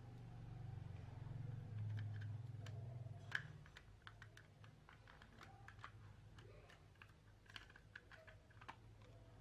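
Irregular small plastic clicks and taps as a computer mouse's plastic shell is handled and fitted back onto its base, with one sharper snap about three and a half seconds in.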